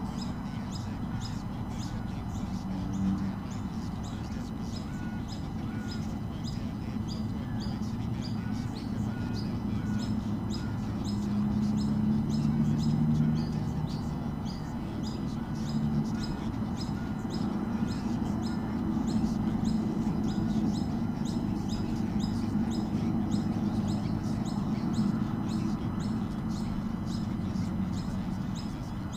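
Short, high chirps repeating evenly, about two a second, over a steady low hum that grows louder for a couple of seconds near the middle.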